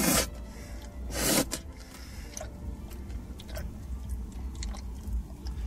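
A person eating an ice cream cone, two short loud mouth sounds at the start and about a second in, then quieter licking and chewing.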